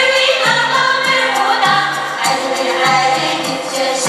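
Accompanying music for a Mongolian sheep-shearing folk dance: voices singing a melody over a steady percussive beat.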